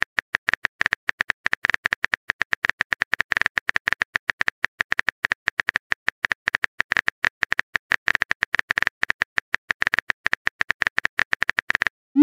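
Phone keyboard typing sound effect: a fast, irregular run of short key-tap clicks as a message is typed out, stopping just before the end.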